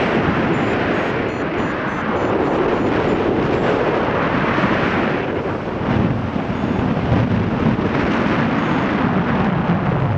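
Wind rushing over the microphone of a paraglider in flight, a loud rough roar that swells and eases every few seconds.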